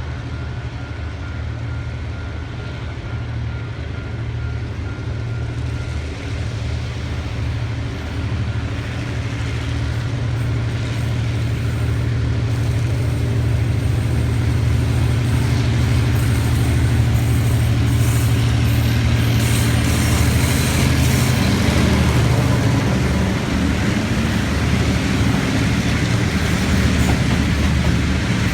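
TRA R23 diesel-electric locomotive's engine running with a steady low drone, growing gradually louder. More high-pitched wheel and rail noise builds in the second half.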